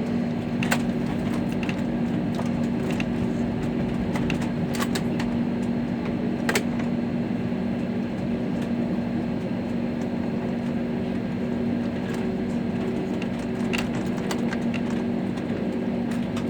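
Steady airliner cabin noise while taxiing after landing: an even hum with a held low drone, broken by a few short sharp clicks scattered through it.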